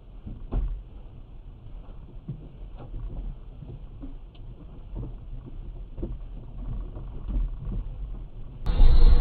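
Low rumble of a stationary car recorded by its own dashcam, with scattered light knocks and a louder thump about half a second in, as a man handles the front of the car. Near the end it cuts suddenly to much louder road noise from a moving car.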